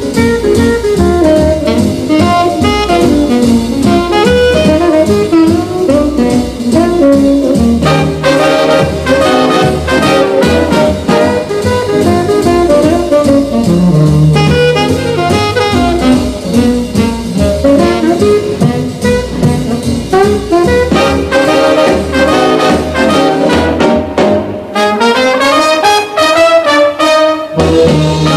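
Background jazz music with brass instruments (saxophone, trumpet, trombone) over a steady beat.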